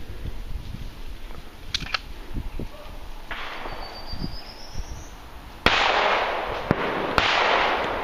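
Shotgun fired twice at clay targets, about a second and a half apart; each shot is sharp with a long echoing tail.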